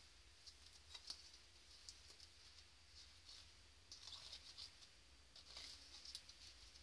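Faint clicks and crinkles of thin plastic cups being handled as one is pulled off a stacked column, coming in scattered small bunches, thickest in the second half.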